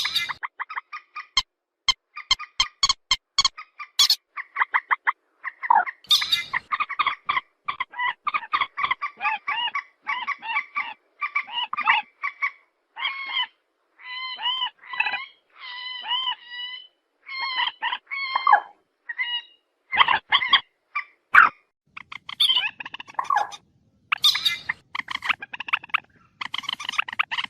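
White-breasted waterhen (ruak-ruak) calling: first a quick run of sharp clicking notes, then many repeated harsh, nasal calls in rapid phrases, some rising and falling in pitch.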